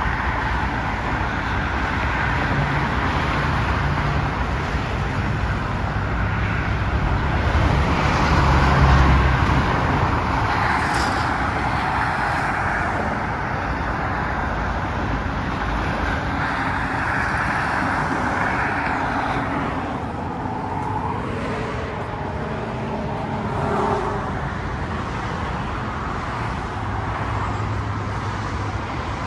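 Freeway traffic: a steady rush of tyres and engines from many passing cars, swelling about eight to nine seconds in.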